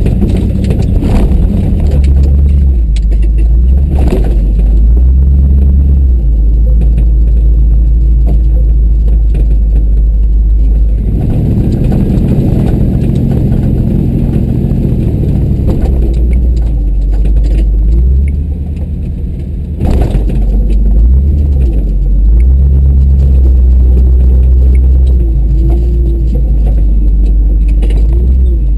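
A GMC tow truck's engine running as it plows heavy, wet snow, a loud, steady low rumble with rattling and a few sharp knocks, the loudest near the start and about twenty seconds in.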